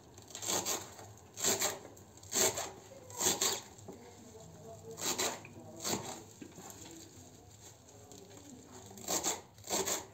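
Knife chopping parsley on a cutting board: irregular short rasping strokes, about five in quick succession, then two more. A pause of a few seconds follows before the strokes resume near the end.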